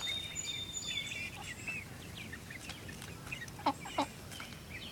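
Backyard chickens clucking and making soft, high trilling calls, with two short, louder clucks about three and a half seconds in.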